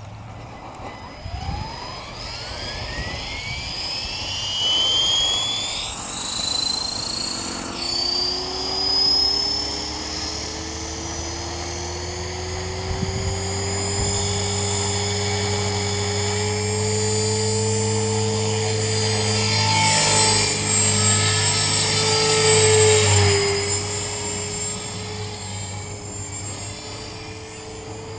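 Electric T-Rex 450 RC helicopter with a 3500kv brushless motor spooling up, its whine climbing steeply in pitch over the first several seconds, then flying with a steady whine that rises and dips in pitch and loudness. A bad main bearing keeps it squealing.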